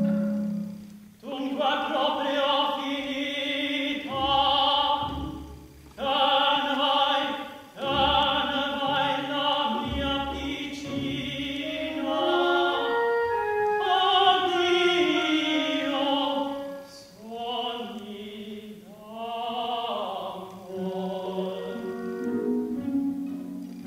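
A male opera singer, a tenor, sings phrases with wide vibrato over orchestral accompaniment, pausing briefly between phrases.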